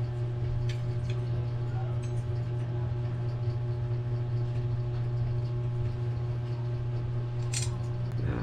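Steady low hum, with a few light plastic clicks and handling noise from a CPU cooler fan being fitted onto its heatsink, and one sharper click near the end.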